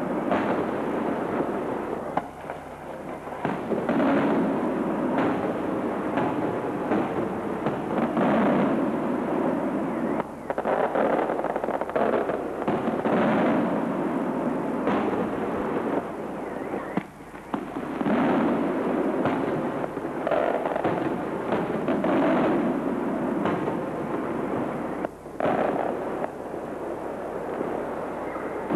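Aerial firework shells bursting overhead in a dense, near-continuous run of bangs, broken by a few brief lulls.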